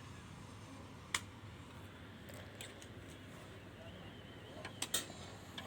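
Small sharp clicks and taps of multimeter test probes being handled and set on connector pins: one about a second in, two close together near the end, over a faint steady hum.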